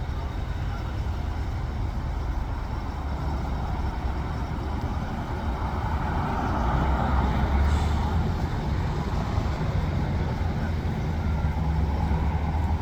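Road traffic: the steady rumble of vehicles driving by, swelling as one passes about halfway through.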